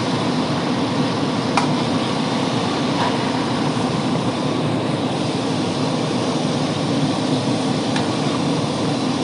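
Steady rushing drone of machinery or moving air, even throughout, with one sharp click about one and a half seconds in.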